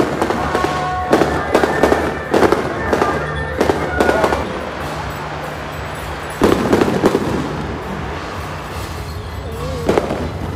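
Firecrackers going off: a rapid run of sharp bangs for the first few seconds, then a louder blast about two-thirds of the way through and another bang near the end, over festival music.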